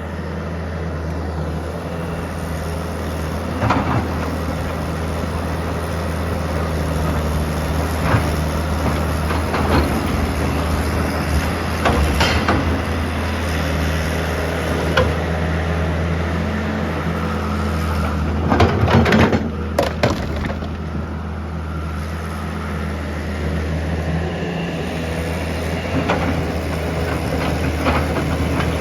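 A large engine running steadily with a low drone, with scattered knocks and clanks, several in a cluster about two-thirds of the way through.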